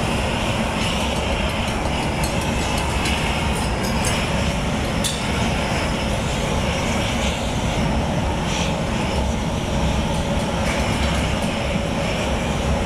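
Handheld gas torches burning steadily, a continuous rushing roar of flame played over a glass casting mold.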